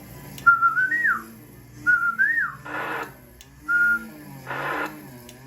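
A person whistling three short phrases. Each is a held note that rises and then falls away, and two brief bursts of hiss fall between them. It is the kind of whistle used to modulate a CB transmitter so the power meter gives a PEP reading.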